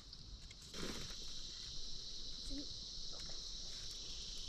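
Insects droning in a steady, unbroken high buzz that comes in under a second in.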